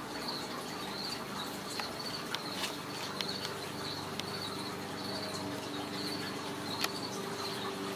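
Insects chirping in a steady, pulsing, high-pitched chorus, with a few light clicks and scratches from kittens' claws on the cat trees.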